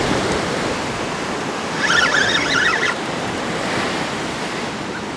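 Surf washing steadily onto the beach. About two seconds in, a brief high-pitched wavering sound lasts about a second.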